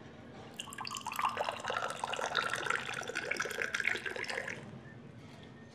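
Tea poured from a silver teapot into a small glass tea glass, a steady splashing stream starting about half a second in and stopping near the end.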